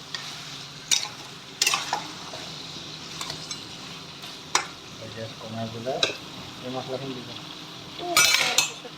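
Duck curry frying in oil in a pan, with a steady sizzle and a spatula stirring and scraping against the pan in several separate strokes. The scraping is loudest just before the end.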